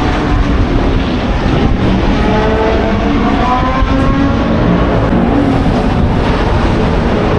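Several historic racing car engines running loudly together, their pitch rising in the middle as they accelerate.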